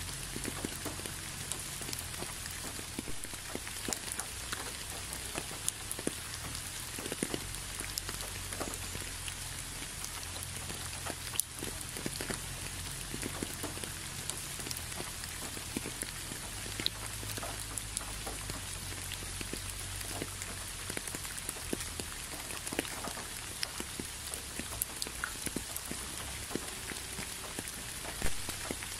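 Steady rain: a continuous hiss with many separate drops ticking irregularly on a surface.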